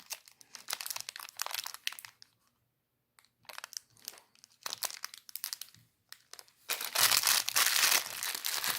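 Plastic packaging crinkling and rustling as it is handled, in irregular crackly bursts with a short pause a few seconds in, then louder, more continuous crinkling near the end.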